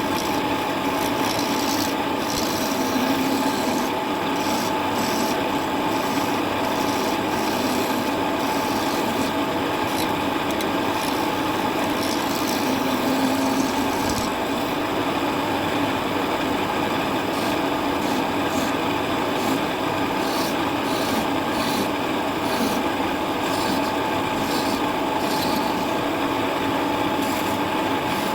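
Wood lathe running while a turning tool cuts a spinning wooden spindle: a continuous rasping scrape over the machine's steady hum.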